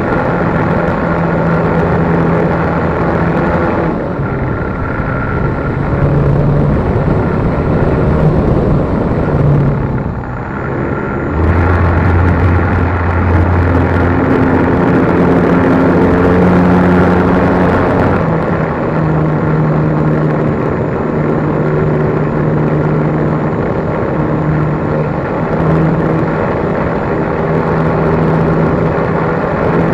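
RC plane's motor and propeller running in flight, picked up by the camera on the plane, with a steady drone whose pitch and loudness shift in steps as the throttle changes, over a rush of air.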